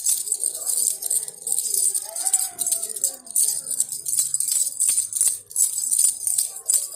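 A baby rattle being shaken over and over, giving quick, uneven bursts of bead rattling.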